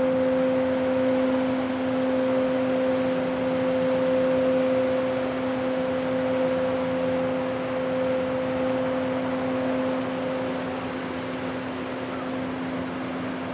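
Steady hum of a passing cargo ship's engines and machinery: a low steady tone with a second one an octave above, over an even hiss. It eases a little toward the end as the ship moves away.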